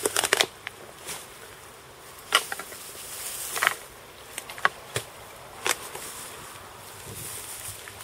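Fishing reel's clutch ticking in short buzzing spurts and single clicks as a hooked carp takes line on light tackle.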